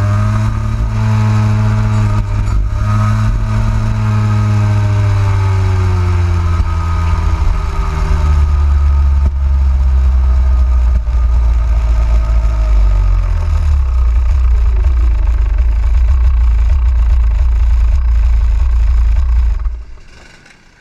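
Rotax Max 125 cc two-stroke kart engine heard from onboard, its pitch falling steadily as the kart slows down, then running low and steady before the sound fades out just before the end.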